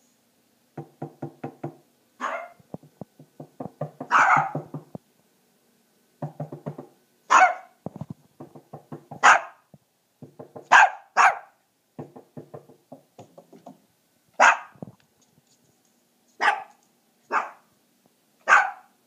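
A small long-haired puppy barking loudly, about ten sharp single barks spread out with pauses, deliberately provoked. Between the barks come low, rapid pulsing sounds.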